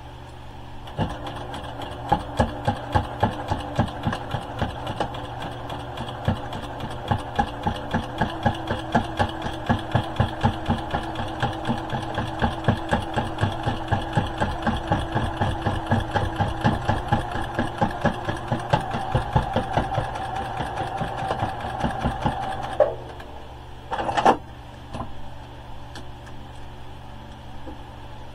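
Domestic sewing machine with a walking foot stitching slowly through thick layers of kitchen towel and scarf fabric: even needle strokes over the motor's hum, the machine struggling a little with the bulk. The stitching stops about three-quarters of the way through, and a single sharp clack follows soon after.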